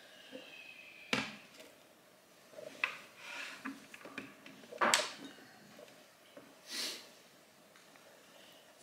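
Tableware handled on a lacquered wooden breakfast tray: a few separate knocks and clinks of bowls and dishes set down and picked up, a second or two apart, the loudest nearly five seconds in.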